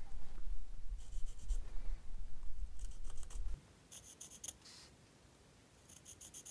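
Pencil marking short lines onto a turned mahogany blank along the edge of a cardboard pattern: about five brief scratchy strokes, spaced a second or so apart. A low rumble sits under the first half and stops about three and a half seconds in.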